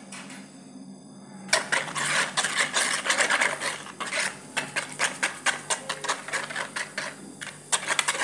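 Wire whisk beating a thin liquid mixture in a bowl, with rapid clicking and splashing as the wires strike the bowl, about four strokes a second. The beating starts about a second and a half in.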